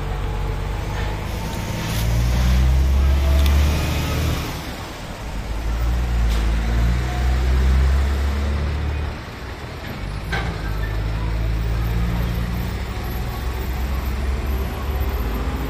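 A motor vehicle's engine running close by, a low rumble that swells loud twice in the first half.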